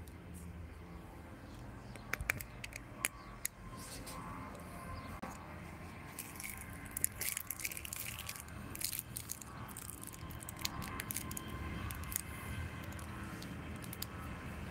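Handling noise from a phone being moved: a few sharp clicks about two seconds in, then scattered rustling and crackling clicks through the middle, over a low steady hum.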